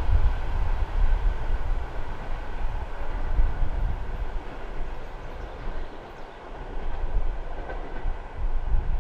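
Passenger train running on the rails, a steady low rumble of wheels and cars.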